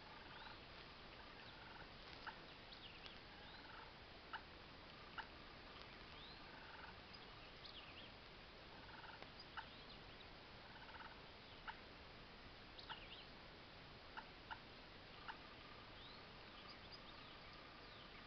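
Faint wild birds calling: about a dozen sharp chip notes scattered through, short whistled notes, and wild turkey calls in the distance.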